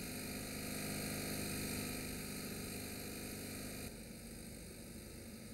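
Steady low mechanical hum over background noise, like an engine or motor running. It drops a little in level at an abrupt change about four seconds in.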